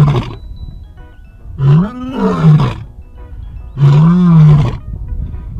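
Male lion roaring, about one roar every two seconds. Two full roars fall in the middle, each about a second long, rising and then falling in pitch. The end of a roar is heard at the start, and another begins at the very end.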